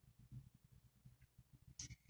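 Near silence: faint low room rumble, with a brief faint rustle near the end.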